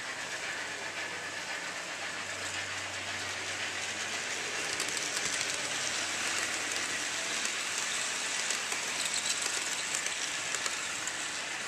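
HO scale model passenger train rolling past close by, its small metal wheels rattling and clicking on the track, a little louder as the cars go by about five seconds in.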